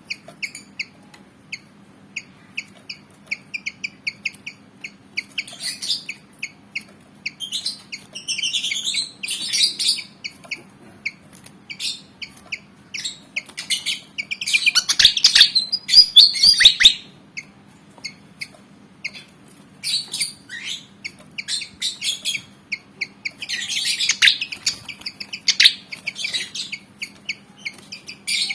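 Kipasan (Javan fantail) singing in rapid runs of short, sharp high chirps, breaking into denser, louder song phrases several times, loudest about halfway through. A faint steady low hum runs underneath.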